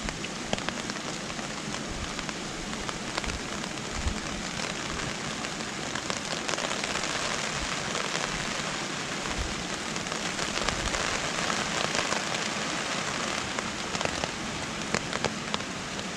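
Steady rushing wash of wind and rain, with scattered sharp ticks and crackles through it and occasional low thumps of wind on the microphone.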